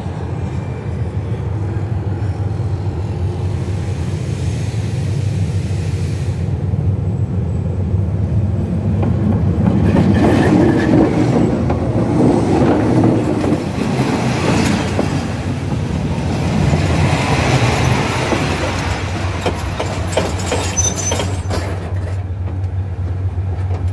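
Railway wagon wheels rolling along the rail right at the lens, over a steady low drone. The rumble builds about eight seconds in and is loudest for the following ten seconds. Sharp clicks follow near the end, as the wheels pass over the rail.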